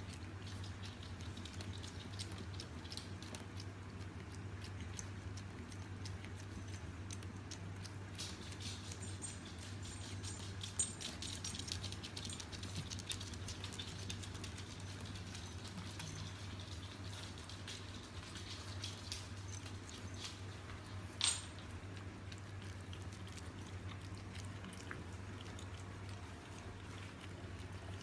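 French bulldog puppy licking and drinking at the metal nozzle of a gravity-fed water dispenser: a long run of small quick wet clicks, busiest about a third of the way in, with one sharper click about 21 seconds in, over a steady low hum.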